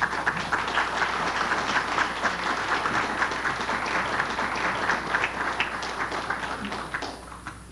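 Audience applauding, a dense spread of hand claps that dies away near the end.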